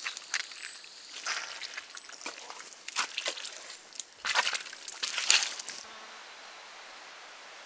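Footsteps crunching on a bush track, about one a second, with a few faint high whistles. About six seconds in they stop abruptly and give way to a steady rushing hiss.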